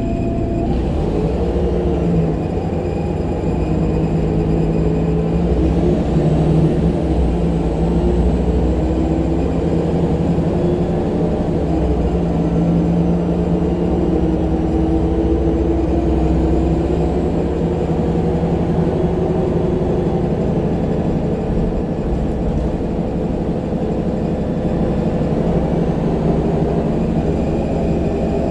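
Jelcz M121MB city bus heard from inside the cabin while driving: its rear-mounted Mercedes-Benz diesel engine runs under load, its note rising and falling several times as the bus accelerates and eases off, over a steady rumble of road and body noise.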